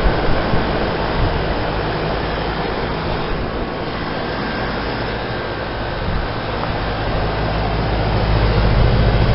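Outdoor heat pump unit running in heat mode: a steady fan rush over a low compressor hum, getting louder near the end.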